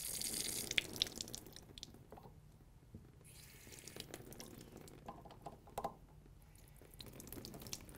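Faint hiss of water spurting from a test cock on a bronze double check valve assembly as it is opened and closed to flush it, with a second short spurt a little after three seconds in. Small clicks of brass fittings being handled are heard throughout.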